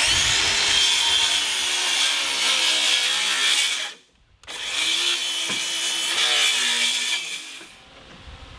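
Cordless DeWalt power saw cutting into a wooden crate frame, in two long runs of about four and three seconds. The motor spins up at the start of each run, and its pitch wavers under load as the blade bites the wood. The first run stops abruptly just before the halfway point.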